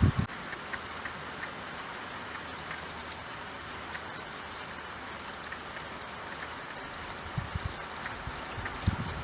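Steady rain falling, a continuous hiss with scattered drips. A short loud low thump at the very start, and a few brief low rumbles near the end.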